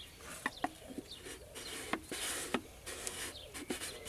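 Rubber air-intake hose of a Fiat Panda 900ie being handled and pushed onto the engine's injection unit: a string of short clicks, rubbery squeaks and rustles, busiest about two seconds in.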